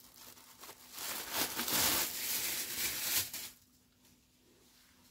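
Clear plastic wrapping crinkling as it is pulled off a folded stack of cotton fabrics, stopping about three and a half seconds in.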